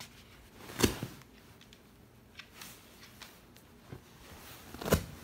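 Two soft thumps about four seconds apart, with faint rustling and small clicks in between, from handling around a fabric sofa.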